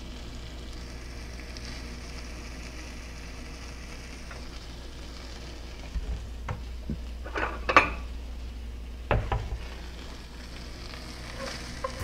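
Small pieces of meat sizzling steadily in a cast-iron skillet, with a few sharp clinks and scrapes of a metal spatula against the pan in the second half.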